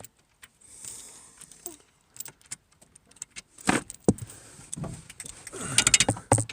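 Ratchet wrench clicking and loose metal parts clinking, in scattered clicks with a dense run of them near the end.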